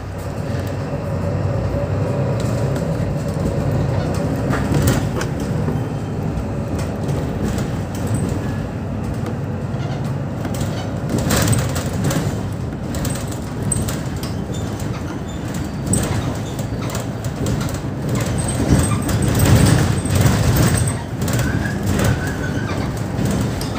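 Mercedes-Benz Citaro O530 II city bus heard from inside while driving: steady engine and road noise with frequent clicks and rattles, and a steady whine through the first half.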